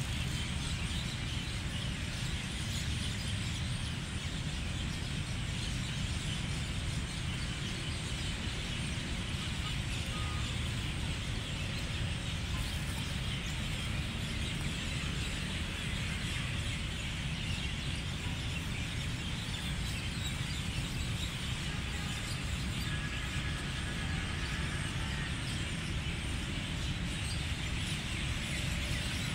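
Steady outdoor background noise, a low rumble with a hiss over it, and a few faint bird calls. No clear run of duck quacks stands out.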